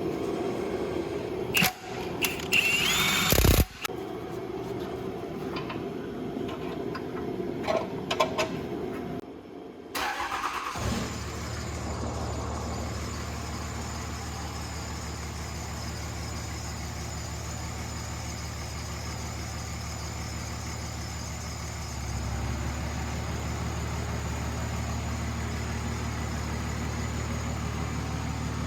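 Knocks and clatter of work on the truck, then about ten seconds in a diesel pickup engine starts and settles into a steady idle. Its level steps up slightly about twenty-two seconds in.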